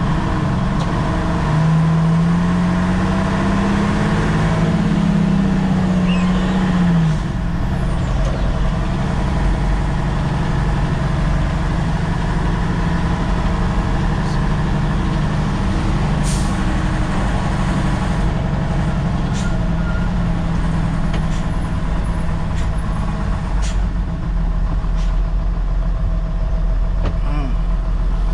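Diesel engine of a Nissan CK31L concrete pump truck running under way. Early on the revs climb and then ease back, and a few short clicks come later.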